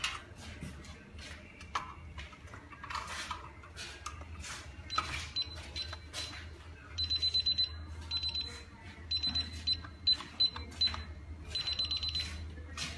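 Fire alarm sounding in groups of rapid, high-pitched electronic beeps, starting about five seconds in, mixed with scattered clicks and knocks over a steady low hum.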